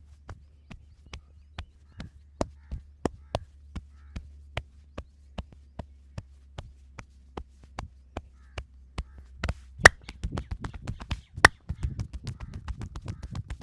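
Hands striking the body in a percussive massage: sharp slaps or chops about two to three a second, breaking after about ten seconds into a fast patter of strikes with two louder smacks.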